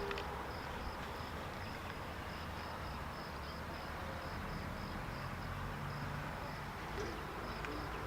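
An insect chirping steadily: a high, evenly pulsed note about three times a second, over a low background rumble.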